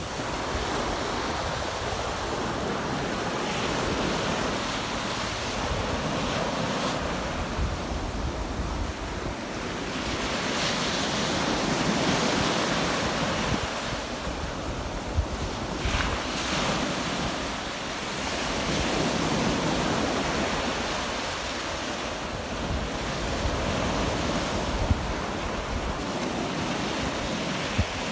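Small sea waves breaking and washing up a sandy beach, the surf swelling and easing every several seconds. Wind buffets the microphone with a low rumble underneath.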